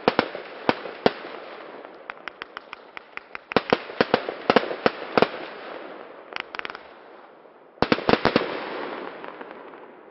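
A 132-shot fanned firework battery firing: a rapid, irregular series of sharp bangs in clusters, with a dense volley about eight seconds in that fades away afterwards.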